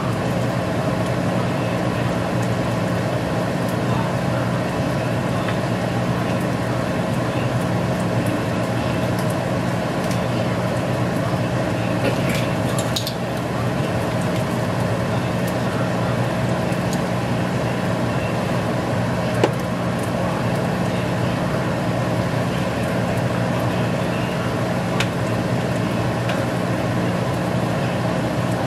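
Steady mechanical hum with a hiss beneath it, like a kitchen fan or appliance motor running, with a few light clicks and taps around the middle and near the end as a spice shaker is handled over the pan.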